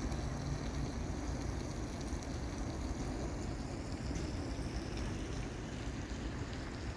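Steady rushing outdoor ambience of flowing river water and wind, heaviest in the low end, with no clear single event.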